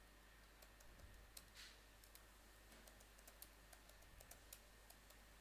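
Faint computer keyboard typing: scattered, irregular keystrokes, as when filling in a username and password.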